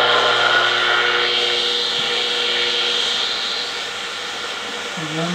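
National HRO-60 vacuum-tube receiver's loudspeaker putting out a steady rush of static with a few steady tones mixed in; the tones drop away partway through as a front-panel knob is turned. Near the end, a short wavering tone rises and falls.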